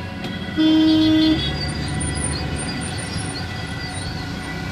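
A vehicle horn sounds once, a steady blast of under a second about half a second in, over the steady rumble of traffic.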